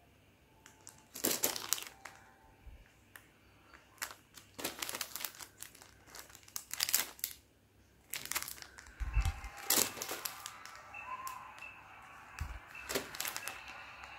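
Clear plastic packets of craft stickers and embellishments crinkling as they are handled and shuffled among other packets. The rustles come in irregular bursts with short pauses between them.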